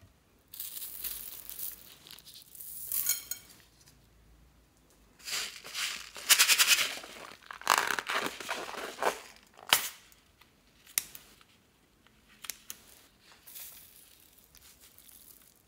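Rubber balloons filled with small plastic beads and sprinkles being handled, squeezed and emptied: the rubber crinkling and rustling, beads rattling and spilling out in several short runs, and a few sharp clicks.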